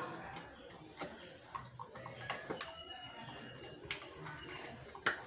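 Rottweiler chewing mutton bones: scattered sharp cracks and crunches, about one a second, the loudest near the end.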